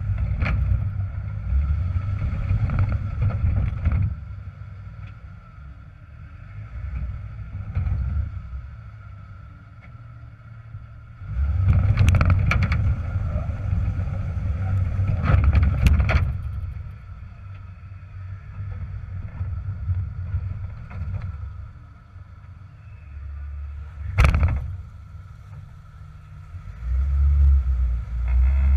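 Jeep TJ engine rumbling and revving in surges as the Jeep climbs over rock ledges, with several sharp knocks along the way, one standing out near the end.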